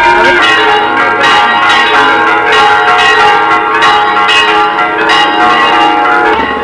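Church bells pealing: many bells struck again and again, about two strokes a second, each ringing on under the next in a continuous peal.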